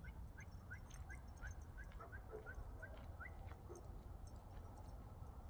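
A bird singing a faint series of short rising whistled notes, about three a second, for the first three seconds or so. Scattered faint ticks underneath.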